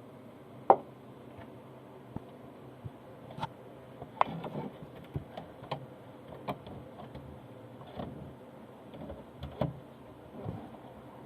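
Irregular clicks and knocks of hands handling a household sewing machine while threading it, with one sharp click about a second in.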